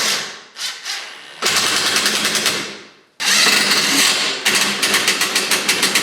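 Impact wrench running fasteners in, a rapid hammering rattle in several bursts of about a second each, with short pauses between.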